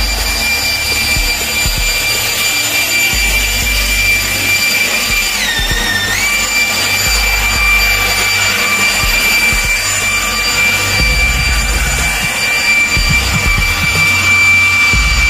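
Leaf blower running steadily, a high whine with overtones over the rush of air; about five and a half seconds in its pitch dips for about a second, then comes back up.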